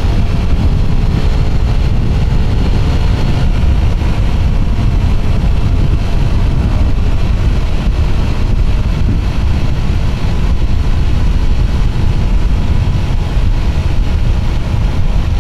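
Steady wind rumble on a helmet-mounted lapel mic fitted with a furry windscreen muff, with a Suzuki Raider 150 motorcycle's engine running underneath, at high riding speed.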